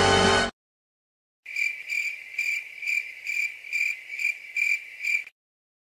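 Cricket chirping in a steady rhythm of about two chirps a second, which then stops abruptly: the stock "awkward silence" crickets sound effect.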